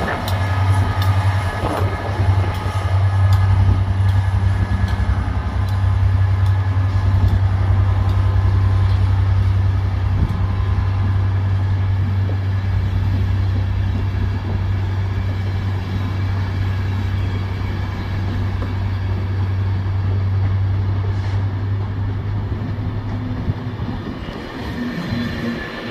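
Class 67 diesel locomotive, with its two-stroke V12 engine, running with a steady low drone as it hauls a rake of coaches past. The drone fades out near the end.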